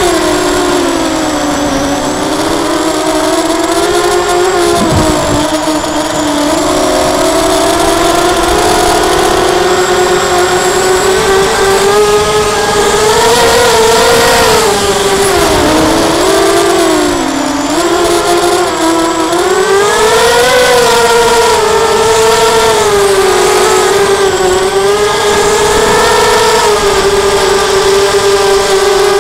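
Lumenier QAV250 quadcopter's brushless motors and propellers whining in flight, the pitch rising and falling as the throttle changes, over a steady hiss. Heard from a camera mounted on the quad.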